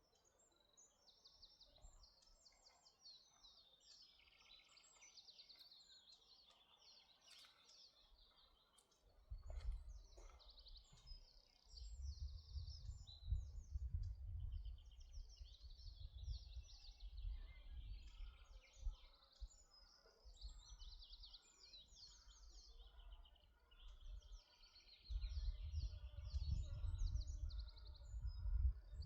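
Birds singing outdoors in repeated fast trilling phrases. A low rumble comes and goes from about nine seconds in and grows louder near the end.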